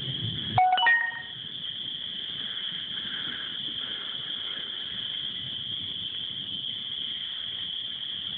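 Thunder rumbles and stops about half a second in. A brief chime of a few notes follows, about a second in. Under both runs a steady high-pitched trilling chorus of calling creatures.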